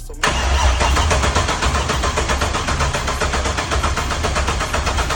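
Sierra pickup's engine fires up suddenly about a quarter second in and keeps running loudly and steadily.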